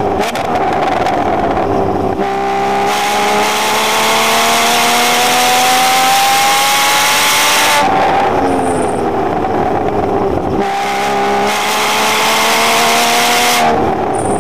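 Porsche sports car's engine heard from inside the cabin under hard acceleration on track. Its note climbs steadily for about six seconds, falls away for about three, climbs again and drops near the end.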